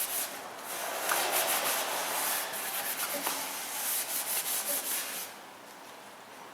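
Repeated hand rubbing strokes against a steel tractor wheel, scratchy and uneven, stopping a little after five seconds in.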